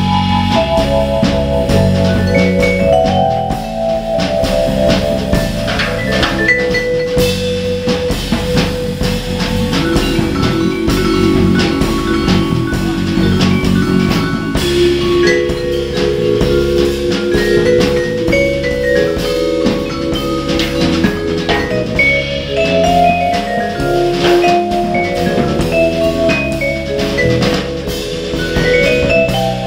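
Jazz played by a vibraphone, drum kit and upright-style bass: the vibraphone carries a melody of ringing, held mallet notes over a steady drum groove and bass line.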